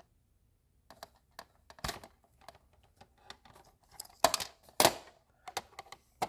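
Small clicks and scrapes of a flathead screwdriver working in a two-pin weather pack connector, prising up the plastic terminal retainer so the wire can be pulled out. There are scattered light clicks, with louder scrapes about two seconds in and twice more between four and five seconds.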